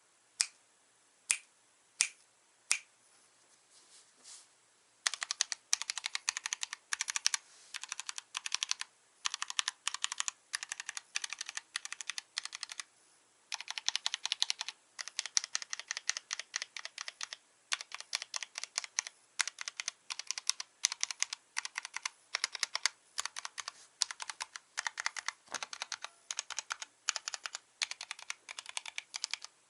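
Mechanical keyboard with stock Kailh Box Black linear switches on a stainless steel plate in a full-aluminium Archon FX case, with Cherry-profile keycaps, being typed on. It starts with four single keystrokes about a second apart, then about five seconds in breaks into fast continuous typing with brief pauses.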